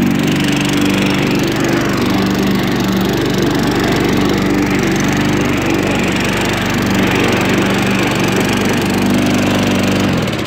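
Gas walk-behind lawn mower engine running steadily and mowing grass with a freshly sharpened blade, then shut off near the end and winding down.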